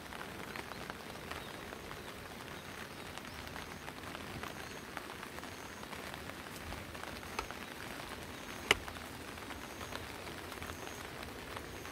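Steady rainfall: an even hiss with scattered ticks of individual drops, and one sharper tap about nine seconds in.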